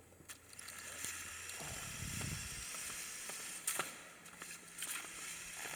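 Tiny Lego Technic RC car driving on a gym floor, its large motor and geared-up drivetrain running with a high, hissing whir. The whir comes in about a third of a second in and eases off around four seconds, with a few sharp clicks.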